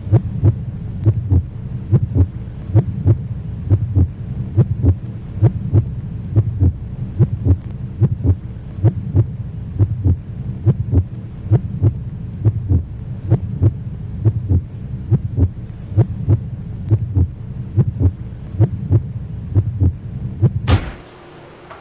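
Heartbeat sound effect: steady, evenly spaced thuds over a low droning hum. Both cut off suddenly near the end.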